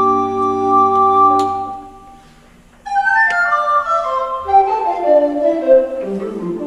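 Recorder ensemble playing: a sustained chord with a low bass note is held and released about two seconds in, and after a short pause the recorders play a run of short notes stepping down in pitch.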